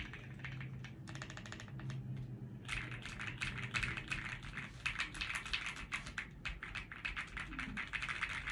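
Typing on a Rainy75 mechanical keyboard fitted with Gateron Oil King linear switches: a fast even run of keystrokes, then quicker, louder continuous typing from about a third of the way in.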